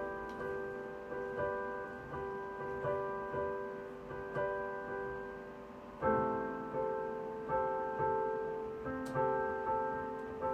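Solo piano background music: a slow melody of struck notes that ring and fade, growing louder with a fuller chord about six seconds in.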